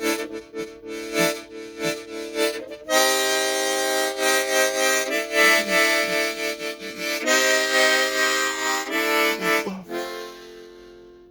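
Harmonica played in chords: short choppy notes at first, then long loud held chords that change every second or two, fading out near the end.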